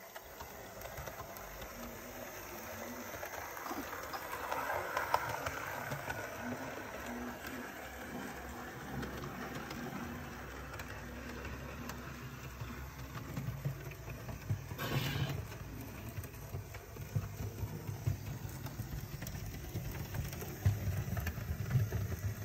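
Model diesel locomotive in Pennsylvania livery running around a model railway track: a low motor hum with the wheels rattling and clicking along the rails. A short scrape about two-thirds of the way through.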